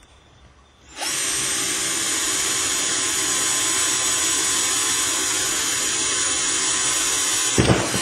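A power drill boring a hole through a kayak's deck. It starts about a second in, runs at a steady speed for about six seconds, and stops near the end with a few knocks.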